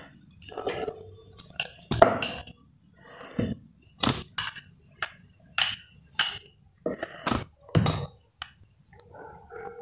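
Wooden rolling pin rolling and knocking on a wooden board as a warm sesame-jaggery mixture is flattened: irregular sharp knocks and clatter, about one or two a second.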